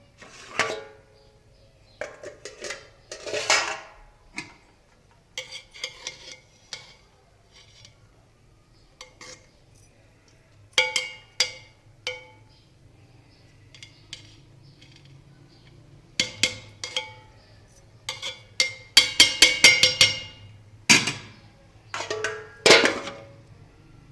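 A metal spoon clinking and scraping against a cooking pot, in irregular strikes with a quick run of taps about two-thirds of the way through, over a low steady hum.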